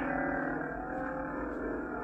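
Neopixel lightsaber playing a Reaver's Arsenal sound font: its steady electric hum, held while the blade is moved slowly.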